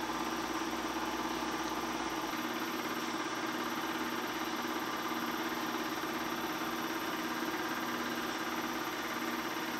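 Bell & Howell 253-A 8mm film projector running steadily, a constant mechanical whir that does not change.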